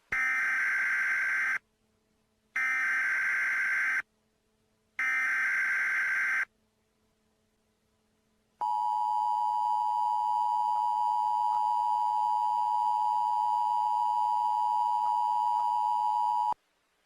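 Emergency Alert System tones: three short, harsh, buzzing data bursts of the SAME header, then the steady two-tone attention signal. The attention signal holds for about eight seconds and cuts off sharply. Together they mark the start of a new alert message.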